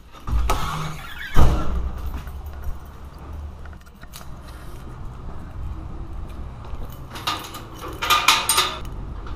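A bunch of keys jangling and a key turning in a door lock, with a loud thump about a second and a half in as the door opens. Near the end, keys rattle and click against a metal gate's lock as it is unlocked.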